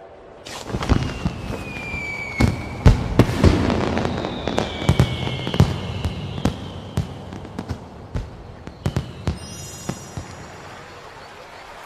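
Fireworks bursting: a dense run of sharp cracks and bangs with a few whistling shells falling in pitch, thinning out into scattered pops toward the end.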